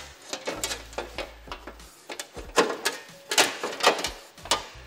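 Sheet-aluminium panel being pushed and wriggled into a tight fit in a car's radiator support, with irregular clattering knocks and scrapes of metal against metal. The sharpest knocks come in the second half.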